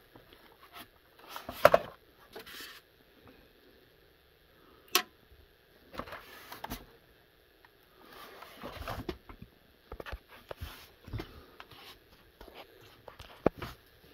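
Handling noise from a beige plastic TRS-80 keyboard being lifted, turned and set down: irregular clicks, knocks and rustles, the loudest about two seconds in and a sharp click near the middle.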